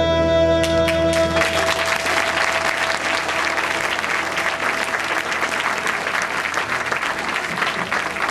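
A held final chord from a song dies away about a second in as a theatre audience breaks into applause that carries on strongly.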